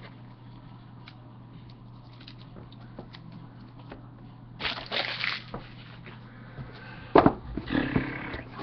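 Trading cards and their card-stock box handled on a desk: a rustle of cards and packaging about five seconds in, then a sharp knock as the Panini Playbook box is set down on the table, followed by more rustling. A steady low hum runs underneath.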